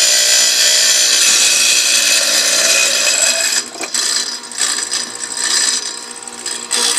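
Wet diamond-blade saw grinding through a glass bottle, a loud, steady high-pitched hiss. After about three and a half seconds the sound turns uneven, coming and going as the bottle is pushed on through the blade.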